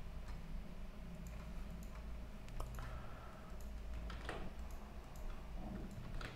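Computer mouse clicks and a few keyboard keystrokes, scattered and irregular, over a low steady hum.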